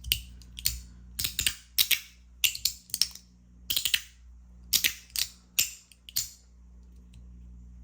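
S-Nano metal magnetic push-slider fidget being slid back and forth, each stroke ending in a sharp metallic click. About fifteen clicks come singly and in quick pairs, stopping about six seconds in.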